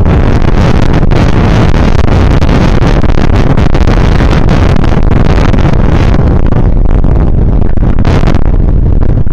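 Wind buffeting the microphone of a camera mounted on a moving bicycle: a loud, steady, low rumbling rush.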